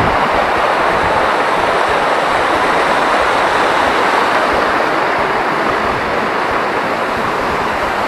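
Mountain waterfall, its falling water making a loud, steady rushing noise with no breaks.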